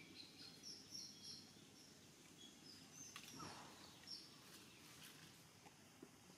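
Near silence: faint outdoor background with a few short, faint high-pitched chirps, clustered in the first second and a half and again about four seconds in.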